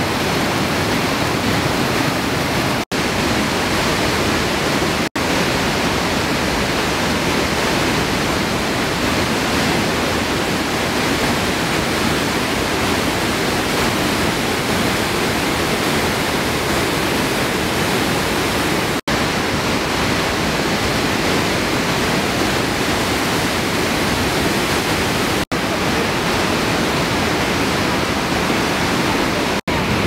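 Afqa waterfall: white water pouring over rocks and boulders in a loud, steady rush, briefly dropping out for an instant five times.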